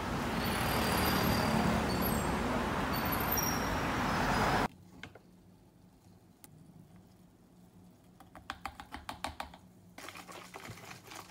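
City street ambience with traffic noise, a steady hiss that cuts off abruptly about four and a half seconds in. Then quiet, with two runs of rapid clicking and rattling from a plastic bottle being shaken to mix BCAA powder into sparkling water.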